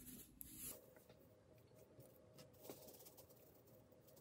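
Very faint patter of table salt pouring from a canister onto raw pork belly, a few soft ticks of grains.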